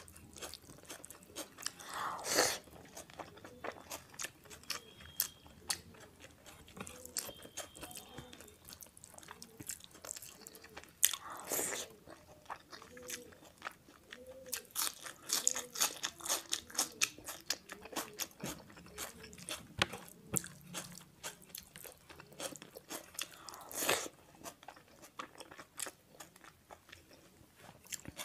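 A person chewing a mouthful of mutton keema and rice: a steady run of wet mouth clicks and smacks, with three louder crunches about two, twelve and twenty-four seconds in.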